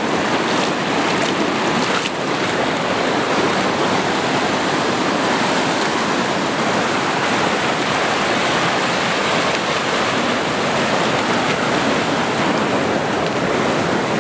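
Mountain creek rushing over rocks close by, a loud, steady, even rush of water.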